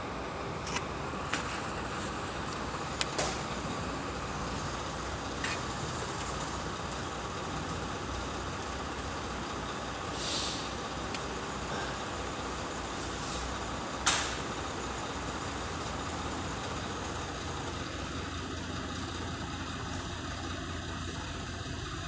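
Aggregate crushing plant machinery running steadily, with scattered metallic clanks and knocks and a short hiss about ten seconds in. The loudest clank comes about fourteen seconds in.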